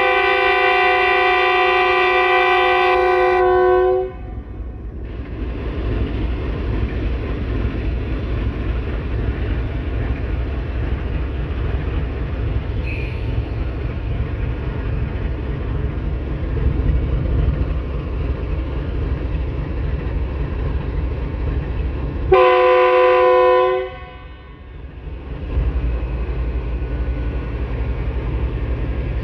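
The multi-tone air horn of GEU40 diesel locomotive 9001 sounding a long blast of about four seconds, then a second, shorter blast about 22 seconds in. A steady low rumble runs between and after the blasts.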